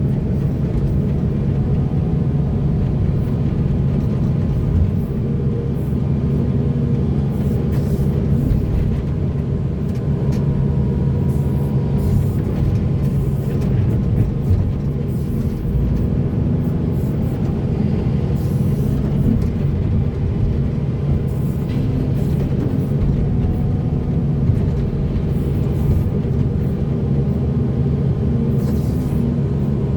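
Heavy diesel earthmoving machinery running steadily, a deep, even engine drone.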